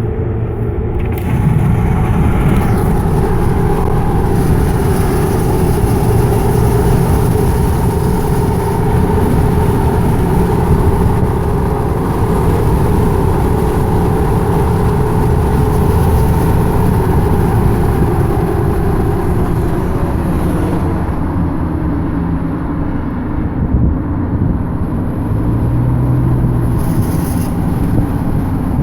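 2012 Ford F-150 EcoBoost's twin-turbo V6 running under way, a steady engine and road noise whose pitch drifts slowly up and down. One or two brief sharp sounds stand out near the end.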